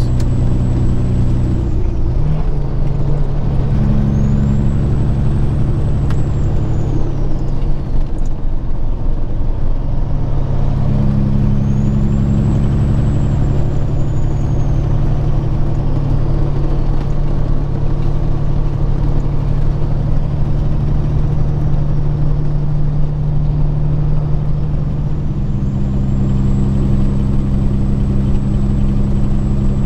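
Peterbilt 379 semi truck's diesel engine droning at highway cruise, heard from inside the cab, its note shifting a few times.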